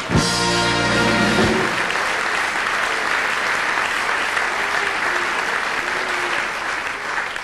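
Carnival audience applauding after a punchline. It opens with a short band chord (a Tusch) lasting about a second and a half, and the applause tails off near the end.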